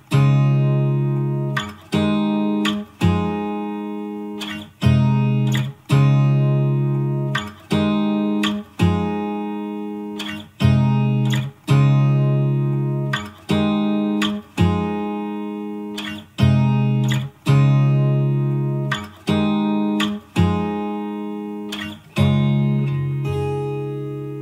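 Background music: guitar chords plucked one at a time, each left to ring and fade, about one every second or two.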